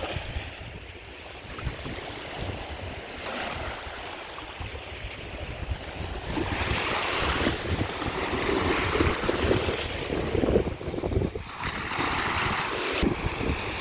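Small waves breaking and washing up on a sandy shore, surging louder in the second half, with wind rumbling on the microphone.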